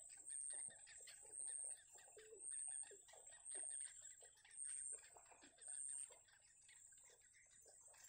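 Yellow bittern chicks giving faint begging calls and clicks in the nest while the parent feeds them. Over them, a high thin chirp repeats about once a second and stops about six seconds in.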